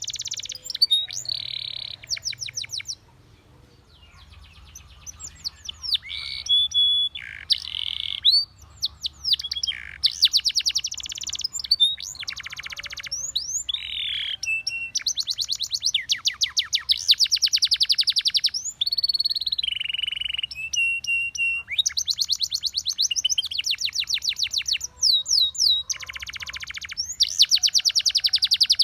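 Spanish Timbrado canary singing: phrase after phrase of fast trills of rapidly repeated notes, mixed with held and gliding whistled notes, with a short lull about three seconds in.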